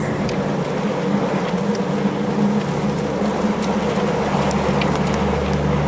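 Steady rushing noise of storm wind and rain, under a low held drone of background music.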